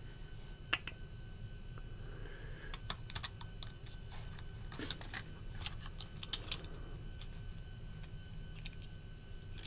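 Small metal parts of a Benchmade Bugout folding knife clicking and clinking against each other as the liner and blade are handled and fitted back together, in scattered quick clusters through the middle few seconds, over a faint steady hum.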